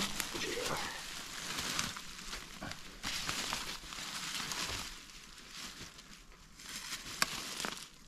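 Rustling and crackling of forest soil and leaf litter being dug through by hand, in three bursts with a sharp click near the end.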